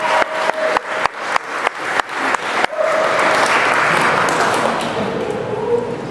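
Audience clapping in a steady unison rhythm, about three claps a second, with a few voices calling out. About two and a half seconds in it breaks into general applause that gradually fades.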